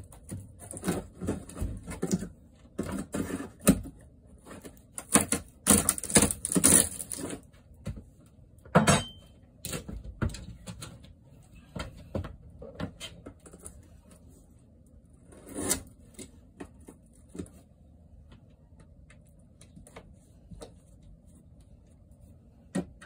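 Thin wood wall paneling being pried and broken off by hand: irregular knocks, cracks and scraping, busy for the first several seconds, then scattered taps.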